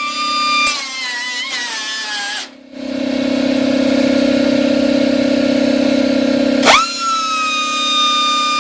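A power tool motor running with a high, steady whine. It cuts out briefly about two and a half seconds in, gives way to a lower hum for about four seconds, then the whine returns.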